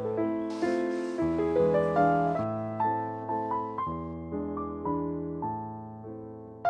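Background music: a gentle piano melody, single notes struck one after another and left to fade.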